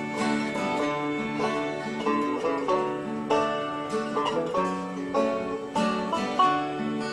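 Background instrumental music with plucked strings, a quick run of notes over a steady beat.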